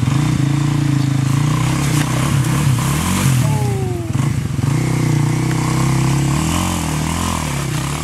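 Small off-road vehicle's engine running steadily close by, its revs dipping and picking back up about three seconds in and again near seven seconds.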